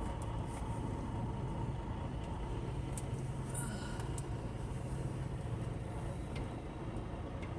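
Steady low drone of a tractor-trailer's engine and road noise, heard from inside the cab while driving, with a few faint ticks.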